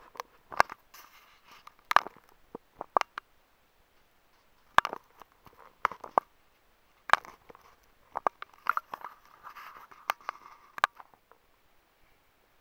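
Footsteps crunching and scuffing on gritty rock while climbing over boulders: irregular sharp steps and short scrapes, stopping about a second before the end.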